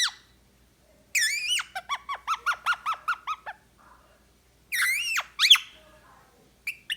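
Indian ringneck parrot calling: a high, warbling call, then a quick run of a dozen or so short repeated chirps, a second warbling call about five seconds in, and a brief chirp near the end.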